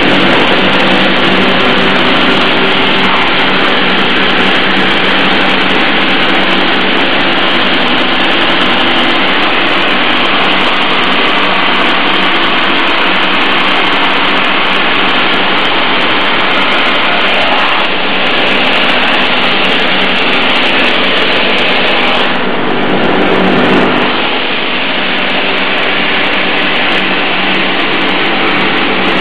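Industrial sanding machine running loudly and steadily, a constant rushing noise over a low hum. The sound shifts briefly about three-quarters of the way through and then runs on a little quieter.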